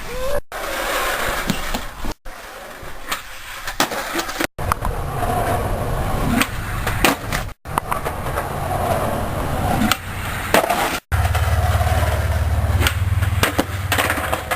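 Skateboard wheels rolling on pavement with a low rumble, broken by several sharp clacks of the board hitting the ground as riders bail, in a string of short cut clips.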